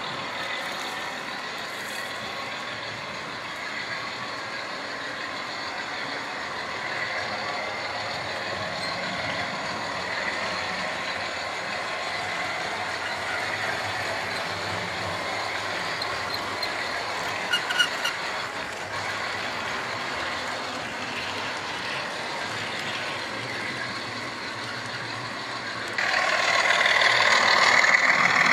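Model railway trains running round the layout: a steady whir of small electric motors and wheels on the track, with a few clicks about two-thirds through. It grows clearly louder near the end as a train passes close by.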